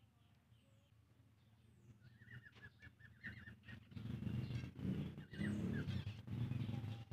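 A bird calls in runs of short repeated chirps. From about four seconds in, a louder low rumbling noise with scattered clicks takes over.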